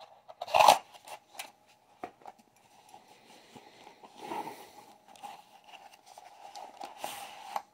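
Plastic wrapping and a padded carry bag being handled: irregular rustles and soft clicks, the loudest rustle coming about a second in. A faint steady hum runs underneath.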